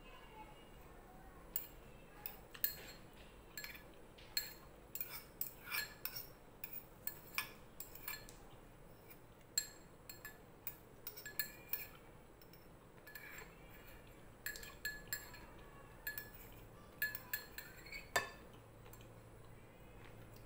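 Metal spoon clinking and scraping against a ceramic bowl as someone eats soup: many light, irregular clinks, with the loudest one near the end.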